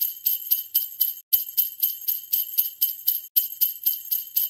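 Sleigh bells shaken in a steady beat, about four shakes a second, cutting out for an instant twice.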